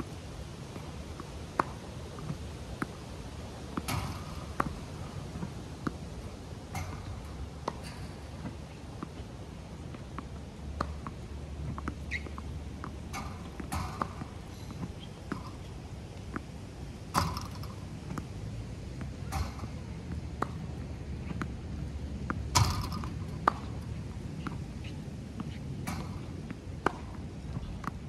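Tennis balls struck with a racket and bouncing on a hard court during ball-machine practice: sharp pops at irregular intervals of one to a few seconds, over a steady low rumble.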